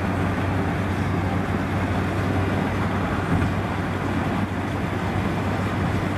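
Steady road and engine noise of a car driving at speed, heard from inside the cabin, with a low, even drone underneath.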